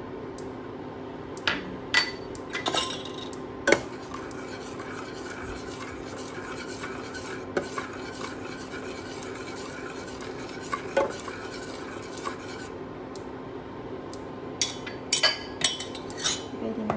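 Metal spoon stirring and scraping sauce in a stainless steel saucepan, with scattered sharp clinks against the pan and a cluster of clinks near the end as the spoon is tapped and set down. A steady low hum runs underneath.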